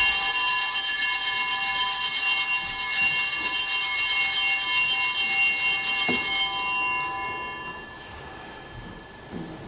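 Altar bells (a cluster of small handbells) shaken continuously at the elevation of the chalice during the consecration at Mass, jingling for about six seconds and then ringing away to nothing.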